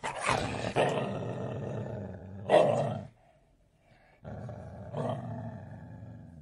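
A dog growling in two bouts separated by about a second of silence, each bout swelling louder before it fades.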